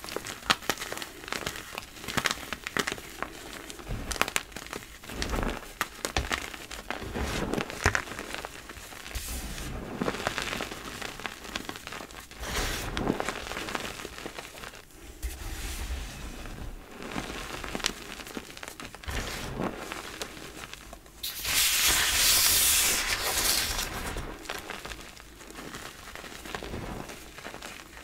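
Hands crushing and crumbling soft reformed blocks of gym chalk in loose chalk powder, giving irregular crunching and crackling with many small clicks. About three quarters of the way through, a louder hissing rush lasts about three seconds.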